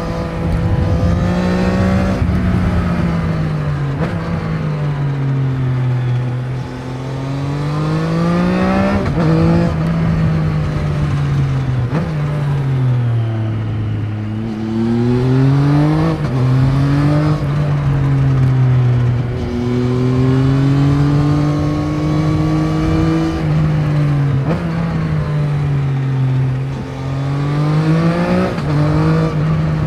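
Triumph Trident 660's inline three-cylinder engine through its stock exhaust while riding, revving up and easing off again and again, with abrupt pitch drops and jumps at the gear changes.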